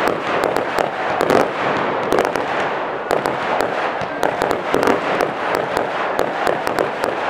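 Fireworks display: many sharp bangs from low aerial bursts, several a second, over a continuous hiss from ground fountains spraying sparks.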